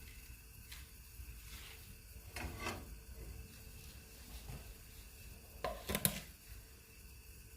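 Faint handling sounds: a short rubbing scrape about two and a half seconds in, then a couple of sharp light knocks around six seconds in.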